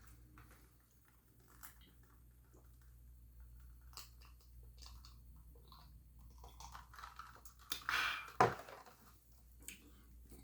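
Close-up mouth sounds of a person chewing food, with soft wet clicks throughout and a louder, brief rustling burst about eight seconds in.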